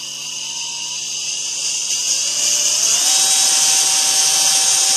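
80 W, 24 V RS-775 brushed DC motor running on 24 V through a PWM speed controller, a steady buzzing whine. About two to three seconds in its pitch rises and it gets louder as it speeds up. By its buzz it turns at up to about 7000 rpm.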